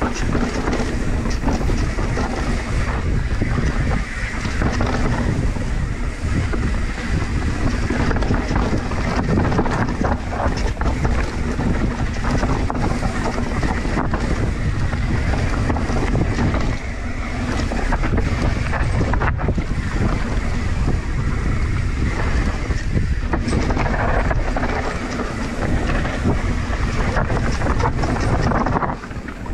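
Mountain bike descending a dirt forest trail: wind buffeting the microphone over the rumble of knobby tyres on the ground, with frequent small clicks and knocks from the bike jolting over roots and rocks.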